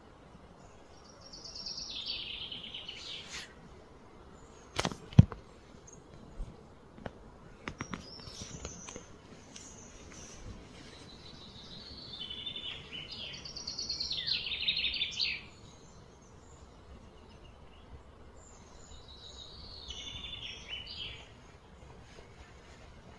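A songbird singing three high, trilled phrases several seconds apart, over a steady outdoor background hum. A sharp knock about five seconds in is the loudest sound, followed by a few lighter clicks.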